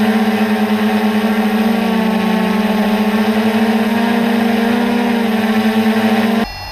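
Multicopter's electric motors and propellers humming steadily, heard close up from the craft itself, with a slight beating in the tone. The hum cuts off suddenly near the end as the motors stop on landing.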